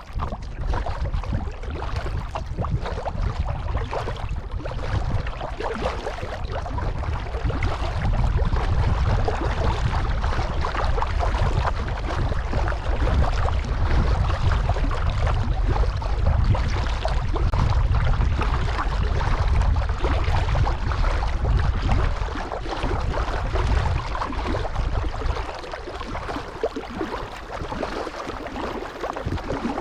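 Kayak paddling on a pond: water splashing and lapping around the paddle and hull, under a heavy low rumble of wind on the camera microphone that grows stronger a quarter of the way in and eases near the end.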